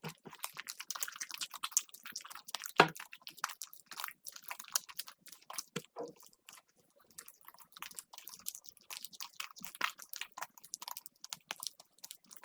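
Slime being squished and pressed by hand, giving a dense, irregular run of small crackling clicks and pops, with one louder snap about three seconds in.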